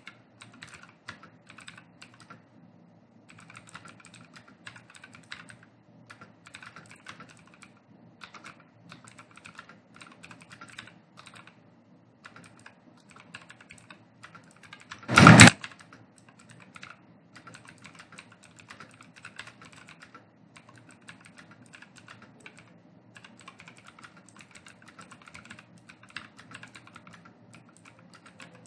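Computer keyboard typing at about 56 words a minute: quick runs of key clicks broken by short pauses. About halfway through there is a single loud thump, much louder than the keystrokes.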